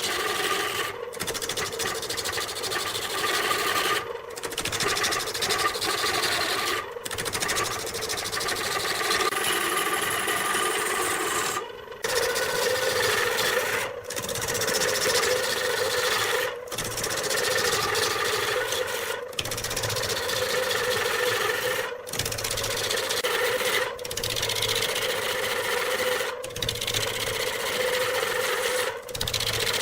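Wood lathe running while a turning tool scrapes and cuts the spinning wood, with a steady hum under a rasping noise. The sound breaks off briefly every two or three seconds.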